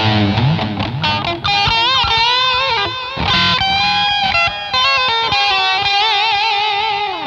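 Electric guitar played through a Zoom G2.1u multi-effects pedal with the Boss GE-7 equalizer switched off: sustained lead notes with bends and vibrato, ending on a long held note with wide vibrato.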